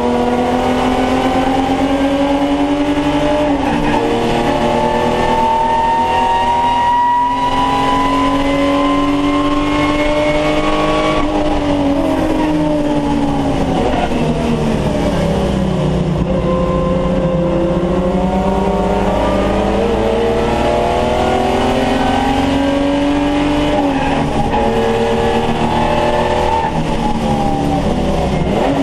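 Holden VT Commodore's V6 engine racing under load, heard from inside the cabin: the revs climb slowly for about ten seconds, drop away as the driver lifts off, climb again, ease off once more a little over twenty seconds in, and pick up near the end.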